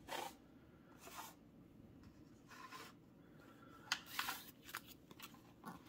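Faint rustles and scrapes of baseball cards in plastic holders being handled and slid across the table, with a light click about four seconds in.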